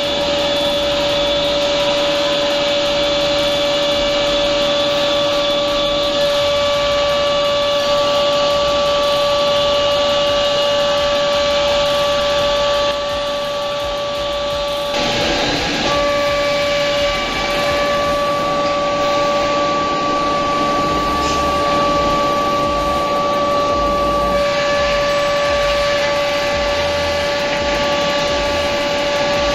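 Six-sided CNC panel drilling machine running: a steady high whine over hiss, which breaks off and changes for a moment about halfway through.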